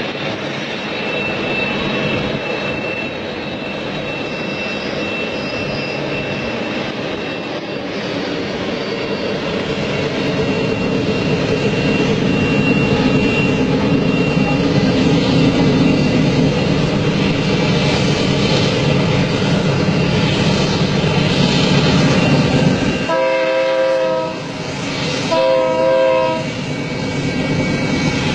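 A long train rumbling past, growing louder, then two horn blasts near the end, the first about a second and a half long and the second about a second.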